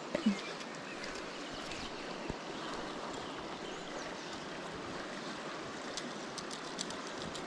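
Steady rush of a shallow stream running over a gravel riffle. A brief voice sound comes right at the start, and a few faint ticks come near the end.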